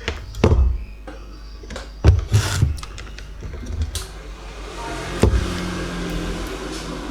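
A handful of sharp knocks and clicks from handling parts and tools on a workbench, followed by a steady hiss from about halfway through.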